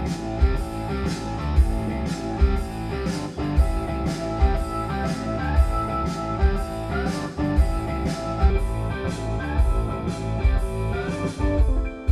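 Guitar music with a steady beat of deep bass drum hits, played through a home hi-fi loudspeaker and picked up from beside the cabinet rather than in front of it. This off-axis pickup favours the bass, so it is the speaker's booming low end that is being tested.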